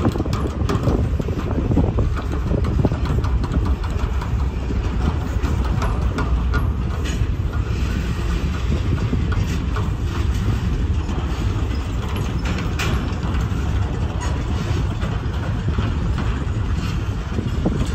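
Freight train cars rolling past on the rails: a steady low rumble with scattered sharp clicks of wheels over the track.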